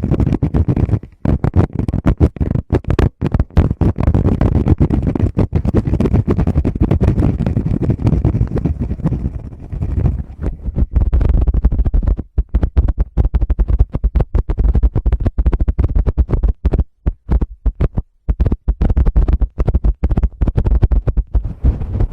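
Fingers tapping, rubbing and scratching directly on a Tascam recorder's microphone: a dense, loud run of rapid taps and brushing strokes with a heavy low thump, broken by a few short pauses.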